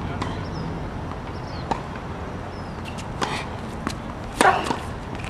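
Tennis rally on a hard court: sharp pops of the ball off the racquets and its bounces, several spread through the seconds, the loudest about four and a half seconds in.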